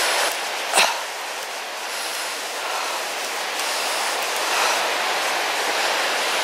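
Steady rushing of a rocky river running over boulders, with one sharp click a little under a second in.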